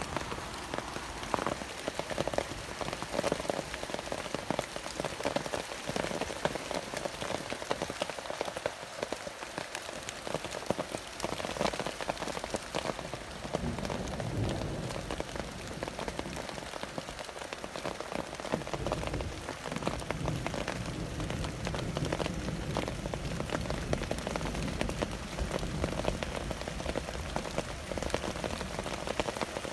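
Steady rain falling, with many close individual drops striking throughout. A low rumble comes in underneath about halfway through.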